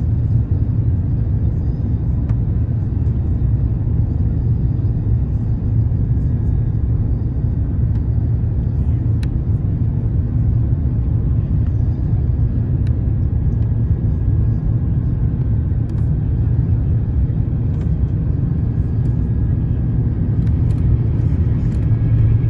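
Steady low rumble of jet engines and airflow inside an airliner cabin, heard while the aircraft descends on final approach.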